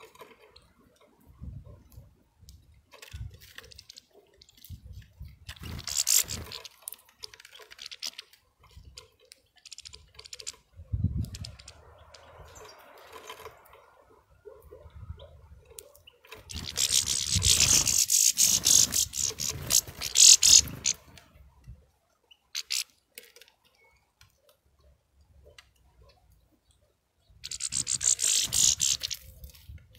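European goldfinches feeding at close range on sunflower seeds: small clicks and cracks from husks and seeds being handled. Three bursts of rasping rustle break in: a short one about six seconds in, a loud one of about four seconds just past halfway, and a shorter one near the end.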